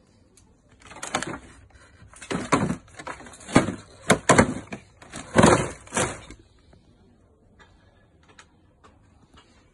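Stacked plastic produce crates being handled: a run of loud scrapes and knocks from about a second in until about six seconds, then only a few faint ticks.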